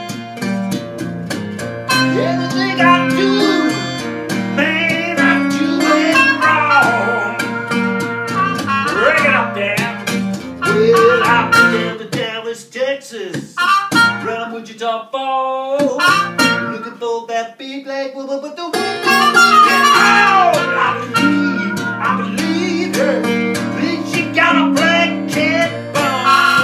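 Blues trumpet and open-tuned acoustic guitar playing together. Midway, for several seconds, the guitar falls away and the trumpet plays on alone with bent, wavering notes, then the guitar comes back in.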